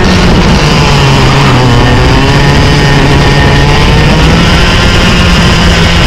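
Small two-stroke racing kart engine running hard under race load. Its pitch drops just at the start, then holds and slowly climbs again.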